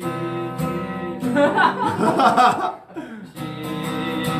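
Acoustic guitar strumming chords that ring on, with a loud burst of voices and laughter in the middle before the strumming picks up again near the end.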